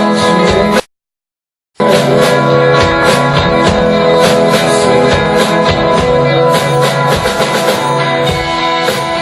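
Loud live music: dense, held, droning tones layered over regular percussive hits. The sound cuts out completely for about a second, starting just under a second in, then comes straight back.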